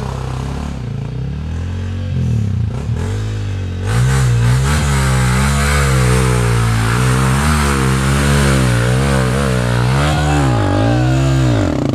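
Dirt bike engine revving up and down as the rider climbs a steep, muddy trail, its pitch wavering constantly. It gets much louder about four seconds in and is closest near the end, with a final rise and fall in revs.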